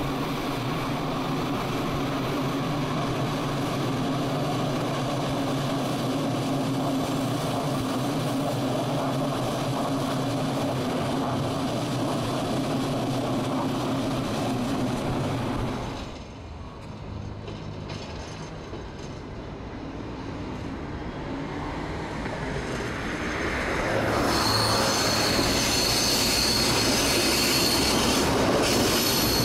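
Cobrasma/Francorail 900-series electric metro train running past with a steady hum and rail noise. About sixteen seconds in the sound drops suddenly, then a second metro train builds up and, for the last few seconds, its wheels squeal loudly on the curve.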